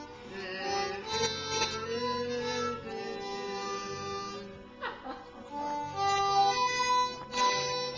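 A harmonica playing a simple tune of held notes, often several sounding together as chords.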